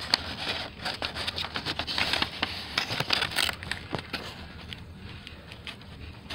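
Packaging being handled during an unboxing: irregular crinkling, crackling and scraping, busier in the first few seconds and thinning out toward the end.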